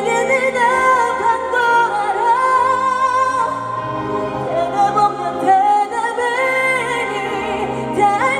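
Live pop ballad through a concert PA: a female singer holding long notes with vibrato over band accompaniment, the loud vocal breaking up in the recording.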